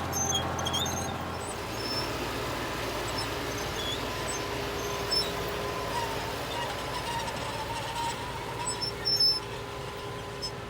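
Tractor engine running steadily under load while turning ground with a plow, with a steady low hum and drone; the low part of the sound shifts about a second and a half in.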